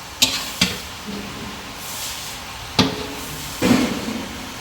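Kitchen cookware clatter: two sharp knocks in the first second, another nearly three seconds in, and a short run of clatter near the end, over a steady frying hiss.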